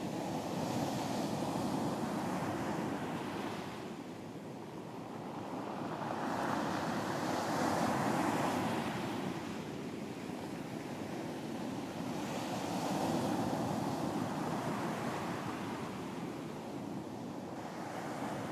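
Ocean waves breaking and washing up a beach, the surf swelling and falling in slow surges every five to six seconds, with some wind noise on the microphone.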